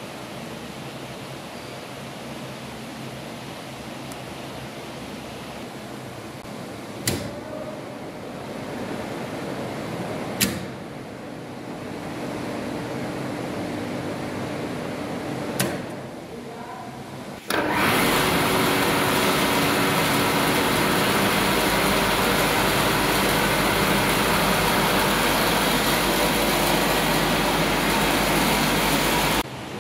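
A 15 HP three-phase induction motor started through a star-delta starter. Sharp contactor clicks come about seven and ten seconds in, and the steady running hum grows louder after each; another click follows a few seconds later. From about two-thirds of the way through, the motor is heard up close running loudly and steadily, and the sound cuts off near the end.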